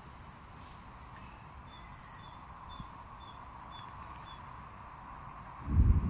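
Woodland ambience: a bird calling a run of short high chirps, about four a second, over a faint steady hum. Near the end a loud low rumble cuts in suddenly.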